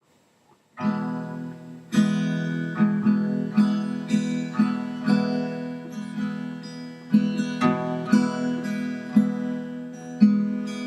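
Acoustic guitar playing a picked and strummed chord progression, starting a little under a second in, with a new chord attack about every half second to second.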